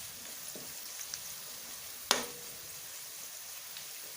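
Sliced onions and curry leaves frying in hot oil, a steady sizzling hiss. There is one sharp clink with a short ring about two seconds in.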